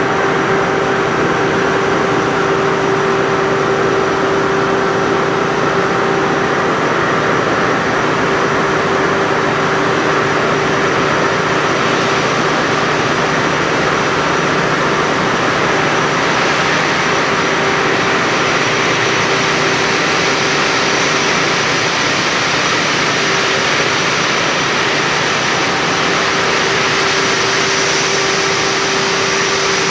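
Ship's engine-room machinery running: a loud, steady roar with a constant hum over it, unchanging throughout.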